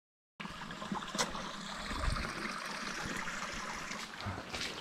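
Water trickling steadily, cutting in suddenly just after the start, with a few sharp clicks over it.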